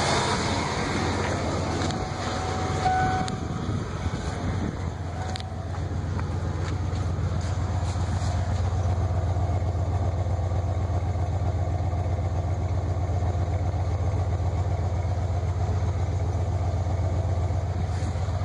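Ford 351 Windsor (5.8 L) V8 idling steadily, heard first at the engine bay and then at the exhaust tailpipe. The owner calls it running as well as these engines ever do.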